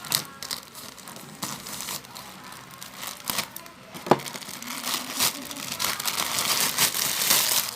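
Packaging being handled and unwrapped: crinkling and rustling, with a few sharp clicks and a steadier, louder stretch of crinkling over the last few seconds.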